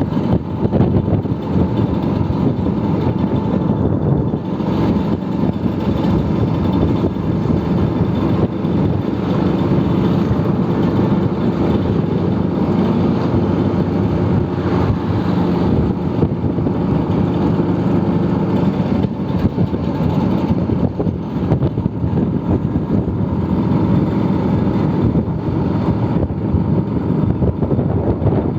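Vintage two-stroke Vespa scooter engine running steadily while riding at an even pace.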